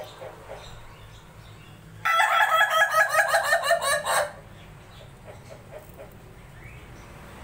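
An ayam ketawa (Indonesian laughing chicken) rooster giving its laughing crow: a loud run of rapid staccato notes, about seven a second, lasting about two seconds and starting about two seconds in.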